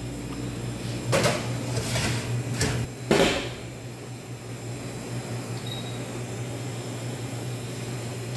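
Oven being shut and set going: four knocks and clacks in the first few seconds, then the steady hum of the oven running, with a short faint high beep about halfway through.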